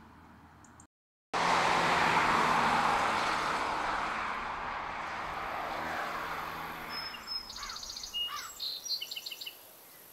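A MINI Hatch driving by, engine and tyre noise starting abruptly a little over a second in and slowly fading as the car pulls away. Birds chirp several times near the end.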